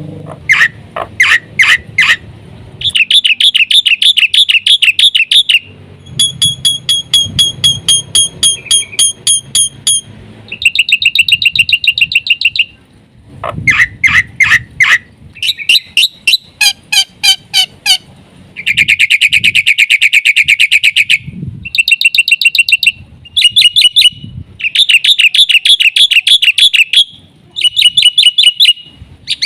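Black-winged myna (jalak putih) singing loudly, a long run of varied phrases of fast repeated notes, trills and ringing whistles separated by short pauses, filled with calls mimicked from other birds.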